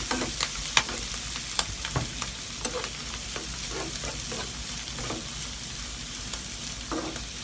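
Shelled clam meat frying with garlic and chilli in a hot stone-coated pan, sizzling steadily, while a metal spoon stirs it and clicks and scrapes against the pan at irregular moments.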